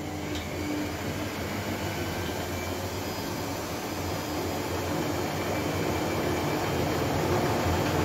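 Teka front-loading washing machine running, a steady motor hum with a whooshing drum and water noise that slowly grows louder.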